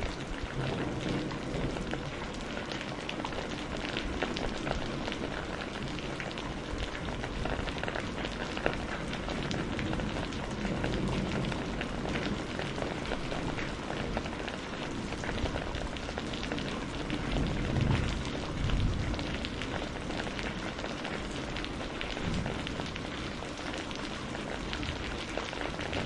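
Steady rain pattering, a dense even hiss of many drops. About two-thirds of the way through, a low rumble of thunder swells twice.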